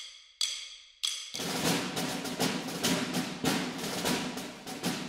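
Outro theme music: a couple of ringing struck notes, then, about a second and a half in, a dense, driving drum rhythm.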